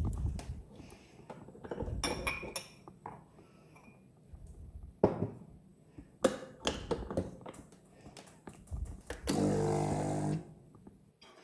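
Knocks and clinks of coffee gear being handled, then an espresso machine's pump buzzing steadily for about a second near the end.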